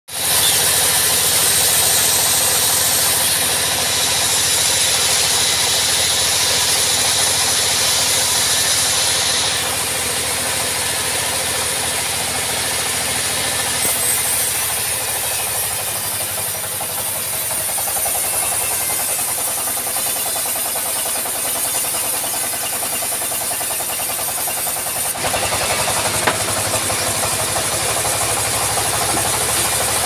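Engine-driven vertical band sawmill running, its blade cutting teak with a loud high hiss for about the first ten seconds. After that the engine drone goes on steadily with lighter cutting noise, and the mid range grows louder again about 25 seconds in.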